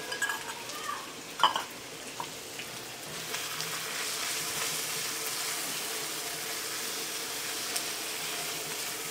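Chopped onion sizzling in hot mustard oil in a wok, with a few light knocks in the first two seconds. From about three seconds in the sizzle grows fuller and steady as a spatula stirs the onion through the oil.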